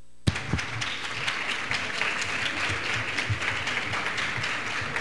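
Audience applauding. It starts abruptly a moment in and keeps going steadily.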